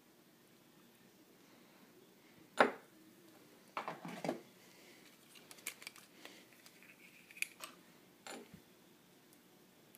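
Hands handling small objects on a wooden desk: a sharp knock about two and a half seconds in, then a short cluster of rubbing and clacking, then scattered light clicks.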